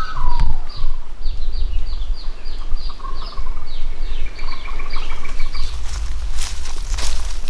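A bird chirping in a fast series of short, high notes, each falling a little in pitch, about three a second, over a low rumble of wind. Near the end the chirping stops and a few sharp knocks are heard.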